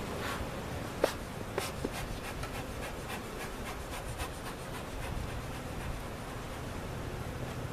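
Wooden beehive equipment being handled: a sharp knock about a second in, a few lighter knocks, then scraping and quick light taps of wood on wood.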